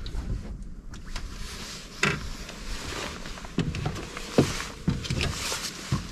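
Footsteps and knocks on the deck of an aluminum fishing boat, a few separate thuds over a low wind rumble on the microphone.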